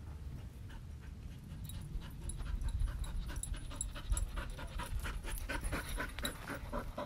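A dog panting rapidly in quick, even breaths, growing louder from about halfway through as it comes close.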